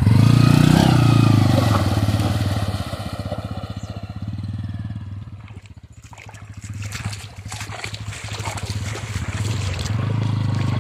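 Bajaj Pulsar N160's single-cylinder engine running under throttle as the bike is worked out of shallow water and up a sandy bank. It is loud at first, fades away about halfway with scattered clicks, and comes back louder near the end.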